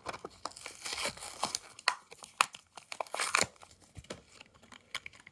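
A Hot Wheels blister-card package being torn open by hand: card tearing and plastic crinkling in a run of sharp crackles and rustles that thin out after about three and a half seconds.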